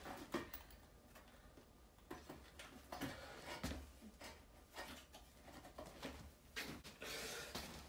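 Quiet handling noises: scattered small clicks and knocks with soft rustling as things are picked up and moved, and a longer soft rustle about seven seconds in.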